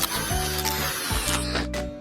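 Background music from a children's cartoon, with a hissing sound effect over the music that fades out about a second and a half in.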